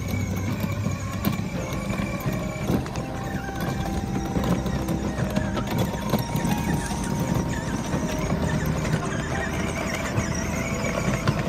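Children's ride-on electric toy scooter rolling over a rough concrete lane: its hard plastic wheels and training wheels clatter and rattle continuously over a low, steady hum.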